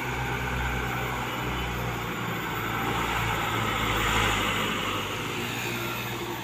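Engine of a log-laden Mitsubishi light truck running as it drives up close, swelling to its loudest about four seconds in and then easing off.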